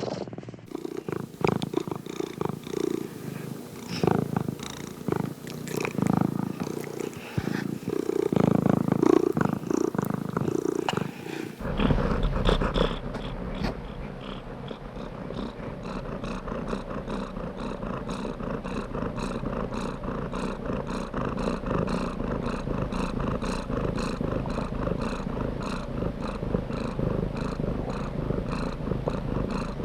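Domestic cat purring close to the microphone. About twelve seconds in, the sound changes abruptly from uneven swells to a steadier, evenly pulsing purr.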